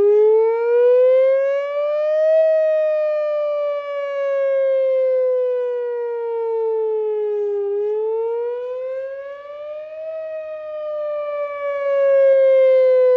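Whelen Vortex R4 outdoor warning siren sounding a wail during its scheduled monthly test. A loud steady tone climbs for a couple of seconds, then slides slowly back down, twice over, and its loudness swells and fades as it goes.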